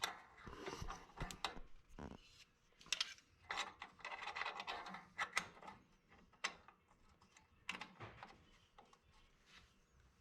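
Irregular metallic clicks, clinks and scrapes of brake springs, shoes and hand tools being worked on a drum brake assembly. They are busiest in the first half and thin out after about six seconds.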